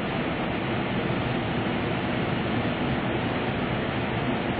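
Steady rushing noise of heavy air flow from the lab's HVAC system.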